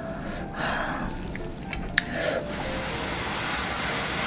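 Close-up eating sounds: a long wet slurp as a big mouthful of jjapaghetti noodles is sucked in, with a single sharp click about two seconds in.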